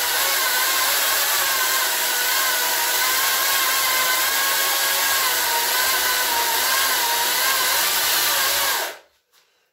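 Makita 36-volt cordless chainsaw cutting down through a block of ash, a steady high whine that wavers slightly as the chain bites; it stops sharply about nine seconds in.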